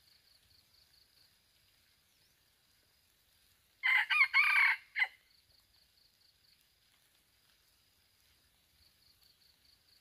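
Red junglefowl rooster crowing once: a loud crow of about a second that ends with a short clipped note. A faint pulsing insect trill runs behind it.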